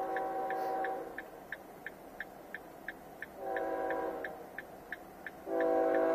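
Diesel freight locomotive's horn blowing the grade-crossing signal. One long blast ends about a second in, a short blast comes in the middle, and a long, louder blast begins near the end. Under it the crossing bell ticks steadily, about three times a second.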